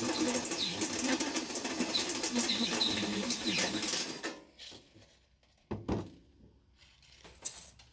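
Cordless drill boring holes through a sheet-metal wireway, the bit grinding through the steel with a few short high squeals, until the drilling stops about four seconds in. Then two knocks as the drill is set down on the truck tailgate.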